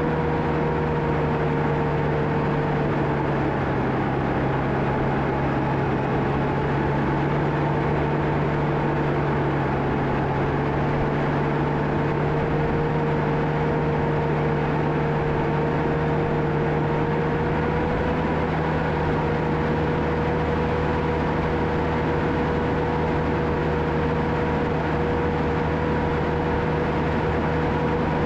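John Deere 650K crawler dozer's diesel engine running steadily under working load. Its pitch sags slightly a few seconds in and comes back up.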